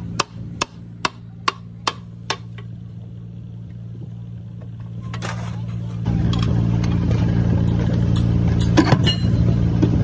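A run of six sharp knocks about 0.4 s apart, like hammer blows, over a quiet steady engine drone; about six seconds in, a louder engine running steadily takes over, with a couple more knocks near the end.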